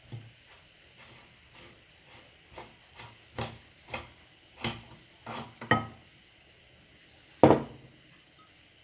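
Light metal knocks and scrapes as the hand-cranked meat grinder's front retaining ring is worked loose, about a dozen over a few seconds, then one loud clack as the metal ring is set down on the wooden tabletop.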